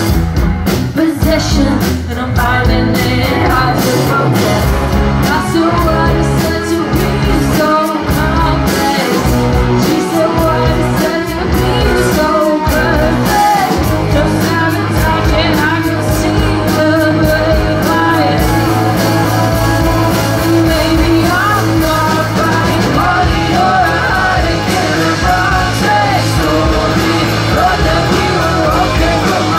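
Live rock band playing loudly, with a woman singing lead over electric guitars, bass guitar and a drum kit.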